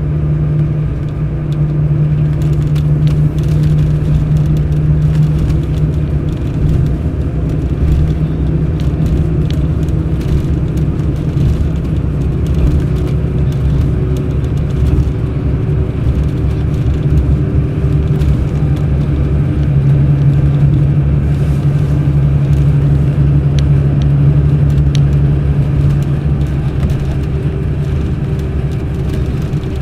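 Mercedes-Benz O500 RSD BlueTec5 coach's diesel engine running steadily on the road, a constant drone with low rumble. Its pitch shifts a little about twelve seconds in and again about twenty seconds in.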